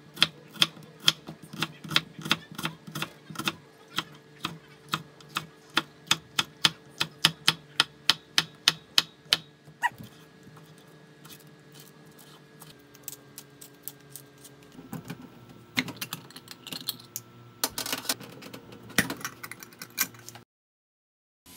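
Kitchen knife dicing an onion on a wooden cutting board: sharp, even chopping strikes about three to four a second for the first ten seconds. After that, quieter knife cuts through bacon on parchment paper, then a few louder knocks and scrapes near the end.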